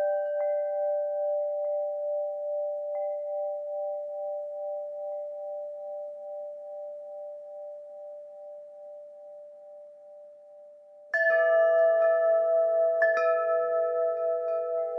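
Wind chimes ringing: a few chime tones slowly die away with a gentle waver, then about eleven seconds in the chimes are struck again in a bright cluster, with another cluster about two seconds later.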